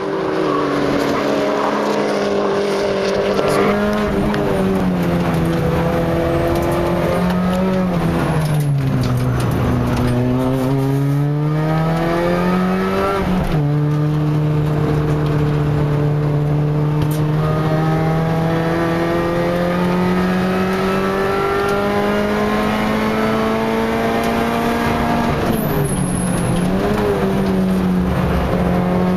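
MINI Challenge race car's 1.6-litre four-cylinder engine at racing speed, heard from inside the cabin. The revs drop under braking and downshifts, climb again, and an upshift comes about halfway through. The engine then pulls through a long steady climb before dropping again near the end.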